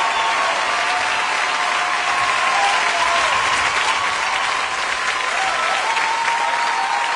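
Large audience applauding and cheering, with voices calling out above steady clapping.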